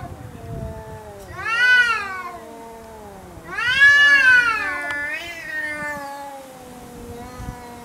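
Two tomcat-style rivals, a black cat and a brown tabby, yowling at each other in a territorial standoff: threat calls that rise and fall in pitch, one about two seconds in and a longer, louder one about four seconds in. A lower drawn-out moan runs beneath them, then fades into weaker wavering calls.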